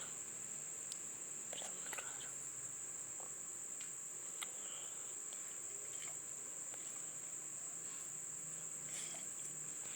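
Crickets trilling: a steady high-pitched drone that does not break, with a few faint scattered clicks and rustles.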